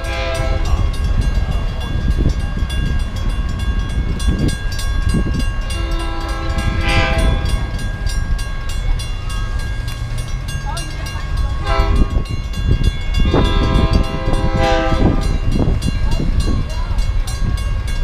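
Horn of an approaching Metra commuter train sounding the grade-crossing signal: two long blasts, a short one, then a long one, each a multi-note chord. Under it runs a steady low train rumble and a faint high ringing tone.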